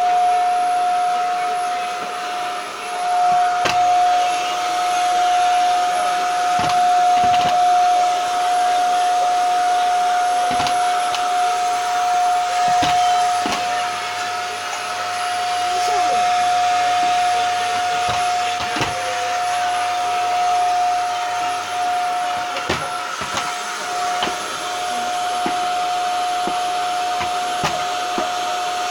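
Household vacuum cleaner running steadily, its motor giving a constant high whine over a rushing noise, with occasional light knocks as it is pushed about.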